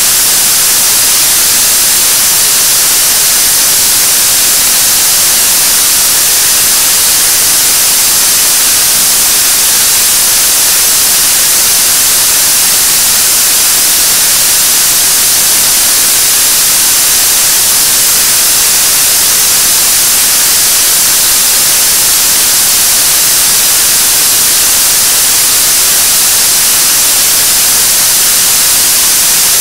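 7-tonne-class liquid-propellant rocket engine (KSLV-II Nuri third-stage engine, qualification model) firing at steady state during a long-duration burn test: a constant, loud hissing rush of exhaust noise, heaviest in the treble, with no change in level.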